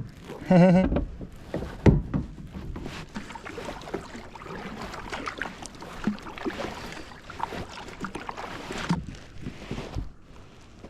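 Water splashing and small knocks and clatter around a kayak, with heavier thumps about two seconds in and near the end. A short, loud, wavering pitched sound comes about half a second in.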